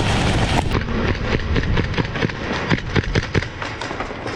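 Airsoft guns firing: a run of sharp, irregular shots.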